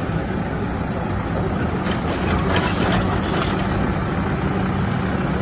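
Mack automated side-loader garbage truck's diesel engine running steadily while its hydraulic arm lifts and tips a wheeled recycling cart. About two seconds in comes a short spell of clattering as the cart is emptied into the hopper.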